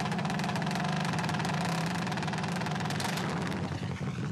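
Mini Cooper rally car's engine, running on renewable fuel, idling steadily.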